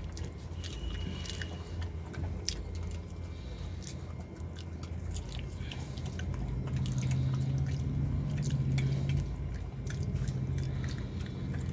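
A pug crunching and chewing crisp papad pieces off a concrete floor: a scattered run of short, sharp crackly crunches over a steady low hum.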